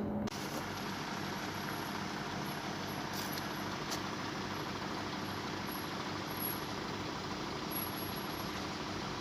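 Steady road vehicle noise, with engines idling.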